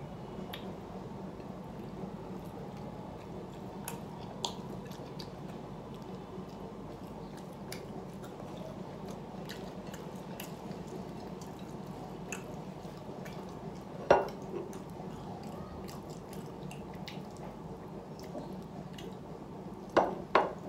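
Close-up eating sounds of rice and fish: wet chewing and small clicks and squelches, with a sharp knock of dishware about fourteen seconds in and two more near the end, over a steady low hum.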